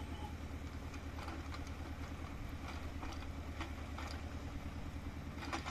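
Engine idling steadily with a low, even hum, heard from inside a car, with faint scattered ticks of rain.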